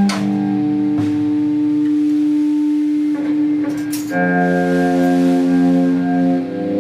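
Live band playing a song: held, ringing guitar-like chords that change about a second in, again just past four seconds, and once more near the end.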